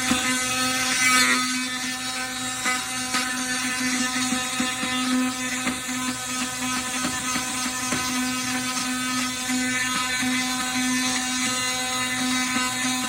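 KIMO 20V cordless oscillating multi-tool running with a steady, even buzz at one speed.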